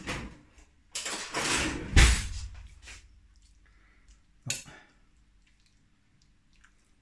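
Clattering and a heavy thump as a spoon is fetched, then quiet handling of metal cutlery in a ceramic bowl with one sharp clink about four and a half seconds in, as spaghetti is twirled with a fork against a spoon.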